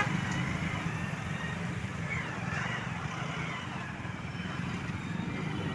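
Vehicle engines idling in stopped traffic, with a bus engine running close by as a steady low hum.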